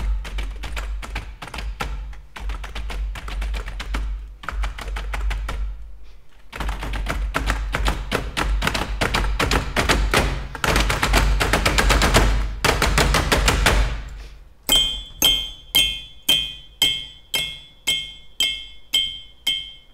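Office-equipment percussion: keys clattering in a fast rhythm that thickens into a dense, loud flurry, then stops about fourteen seconds in. After it comes a bright ringing ding, repeated evenly about twice a second.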